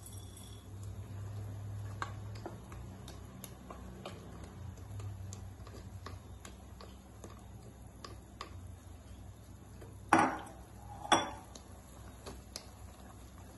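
Wooden spatula working noodle blocks in a steel pan of simmering broth, with small scattered ticks and two sharp knocks on the pan about ten and eleven seconds in, over a low steady hum.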